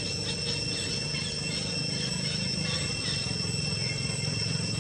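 Steady forest ambience: a continuous high-pitched insect drone over a low, steady hum, with a few faint short chirps in the first second or two.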